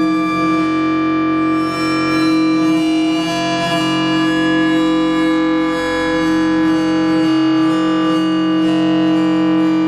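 Digitally synthesized tones from a homemade Karplus-Strong plucked-string algorithm, playing continuously as overlapping held pitches over a steady low note, with some notes changing every second or so.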